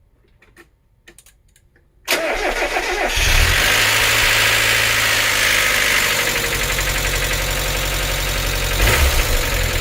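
Mazda NA Miata 1.8L four-cylinder engine cranked over by the starter about two seconds in, catching about a second later and idling with a loud clatter that sounds like a diesel: hydraulic lifters that are noisy on the first start after being cleaned and reinstalled. The running sound swells briefly near the end.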